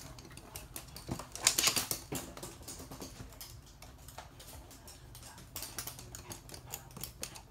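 Toy poodle's claws clicking on a hard floor as it walks and trots, a quick run of light ticks, with a louder scuffle about a second and a half in.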